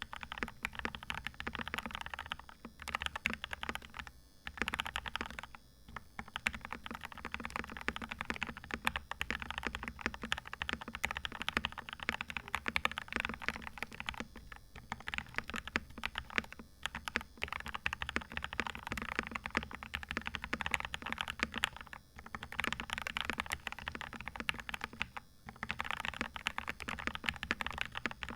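Modded Royal Kludge RK68 mechanical keyboard being typed on in fast, continuous runs of keystrokes, with short pauses every few seconds.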